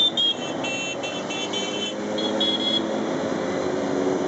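Motorcycles in a slow procession passing close by, their engines running steadily. Short high-pitched tones sound several times in the first two seconds and once more a little later.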